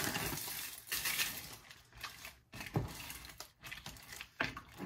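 Dry egg noodles being tipped into a pot of soup: rustling with several separate sharp clinks and clatters.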